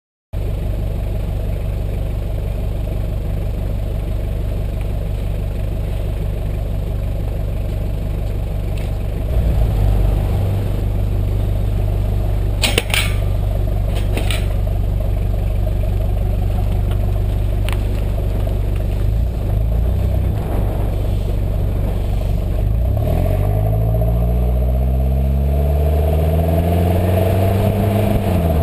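Toyota Prado's 3.0 L 1KZ-TE four-cylinder turbo-diesel running steadily through a 3-inch aftermarket exhaust with a vortex muffler, with a few sharp clicks near the middle. From about two-thirds in it accelerates, the engine note climbing steadily for several seconds before dropping back near the end.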